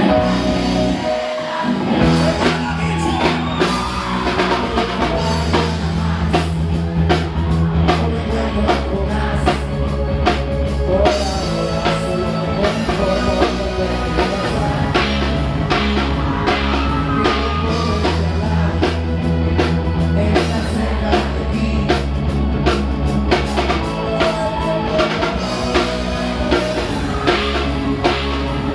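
Live rock band playing loudly, with drum kit, electric guitars and a steady bass line, and a voice singing over it at times.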